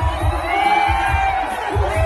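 A large crowd cheering and shouting together, many voices overlapping, as it rises in a human wave.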